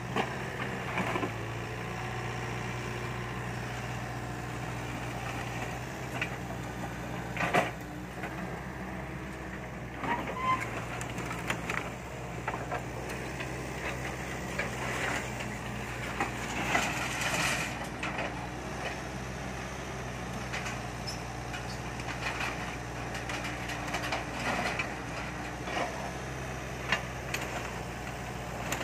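Kobelco SK50P mini excavator's diesel engine running steadily, with scattered knocks and clatter over it.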